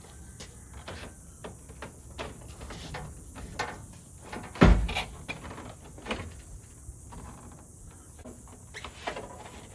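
Scattered clicks, taps and small knocks of hands working on a pickup's door parts, with one loud, heavy thump a little before the middle.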